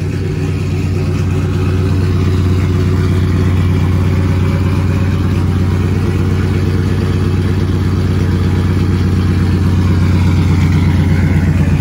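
Chevrolet Silverado's V8 idling steadily shortly after a cold start, a low even exhaust note that grows louder and more pulsing toward the end.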